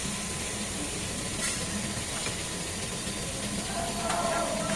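Steady hum and hiss of a jar filling line's machinery running, with a couple of faint clicks.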